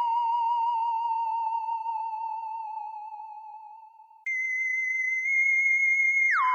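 Electronic sci-fi alien sound effect: a warbling, wavering tone that slowly fades. About four seconds in it jumps abruptly to a steady tone an octave higher, which near the end slides quickly back down to the warbling tone.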